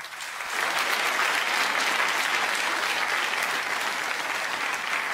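Studio audience applauding, swelling within the first half second and then holding steady.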